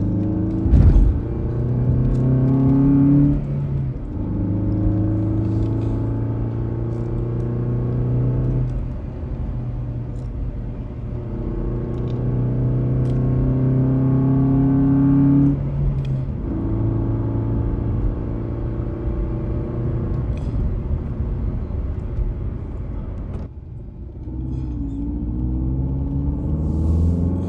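Car engine sound running and revving, rising and falling in pitch in long stretches of several seconds with short breaks between them, and a few light clicks.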